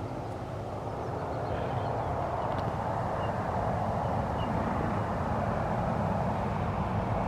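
Wind rushing over the microphone along with road noise while riding, slowly growing louder, with a few faint high chirps.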